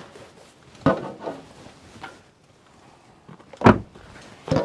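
Three sharp knocks of handling, the loudest about three and a half seconds in.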